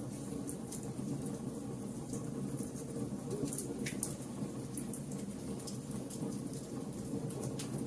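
Fire burning with a steady low rumble and scattered sharp crackles and pops.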